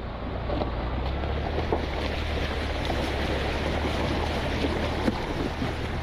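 Mahindra Thar CRDe's front tyre splashing through a shallow stream crossing on a rocky track, with water rushing and scattered clicks of gravel under the tyre, over the steady low hum of its diesel engine.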